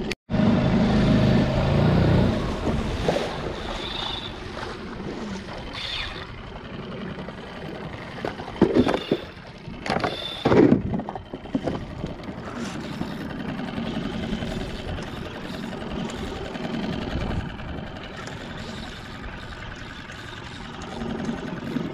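Small Suzuki outboard motor running steadily with the skiff under way, water rushing along the hull. A few loud knocks come about nine to eleven seconds in.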